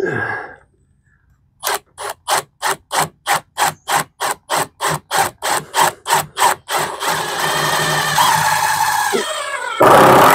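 Power drill driving a screw into a sunshade mounting bracket overhead. It goes first in a long run of short, even pulses, about three a second, then the motor runs steadily for a couple of seconds, with a louder burst near the end.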